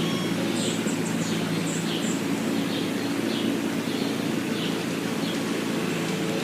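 Sunbirds chirping: short, high, falling chirps about every half second, with a run of thinner, higher notes in the first two seconds, over a steady low mechanical hum.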